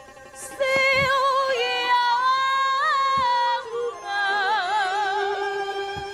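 Taiwanese opera (gezaixi) singing through a stage microphone and PA, with long held notes and wide vibrato, over musical accompaniment. The voice comes in about half a second in.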